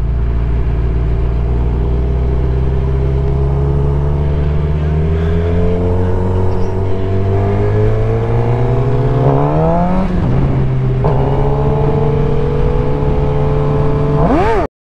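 Suzuki GSX-R sportbike engine accelerating on the highway, its pitch climbing steadily. About nine to ten seconds in it revs up sharply and drops for an upshift, with another shift a second later. It climbs again, then gives a short rise and fall in pitch near the end.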